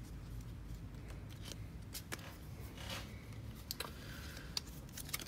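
Trading cards being handled on a tabletop: faint slides and several light, scattered clicks of cards being drawn, turned and set down.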